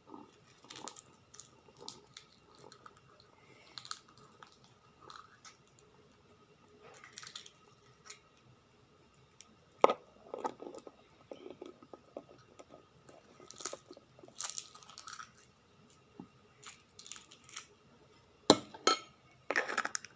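Scattered quiet crunches, clicks and taps of food and tableware being handled close to the microphone, with a sharper knock about ten seconds in and another near the end.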